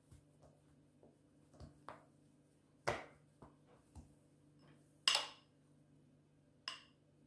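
Hands pressing and patting soft roti dough on a countertop, with a few soft taps and one firmer knock about three seconds in. Later a metal spoon clinks twice against a glass bowl, about a second and a half apart, as oil is scooped out.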